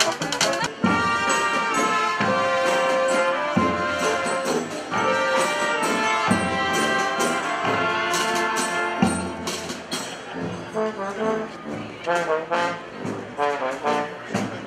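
Street brass band playing: trombones and trumpets hold loud chords over heavy low accents and drums. In the last few seconds the horns switch to short, punchy notes.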